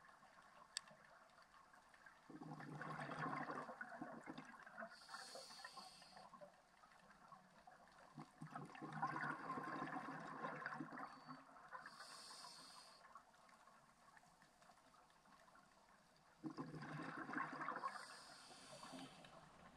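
A scuba diver's regulator breathing in a slow cycle. Three times, exhaled bubbles gurgle out for two to three seconds, and each is followed by a short, higher hiss of inhalation through the regulator.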